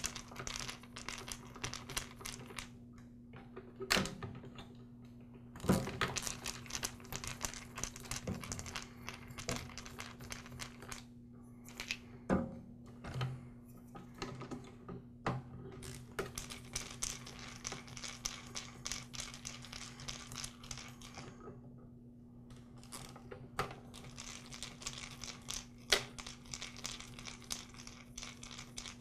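Small handling noises from a DeWALT DW705 miter saw's trigger switch, wires and plastic handle housing as the wires are pulled off the switch: scattered light clicks, rustling and taps, with a few sharper knocks, about four, six, twelve and twenty-six seconds in.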